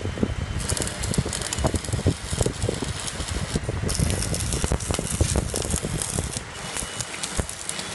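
Electric arc welding on a vehicle's underside: a dense, steady crackle of the arc. The high hiss drops out briefly about three and a half seconds in.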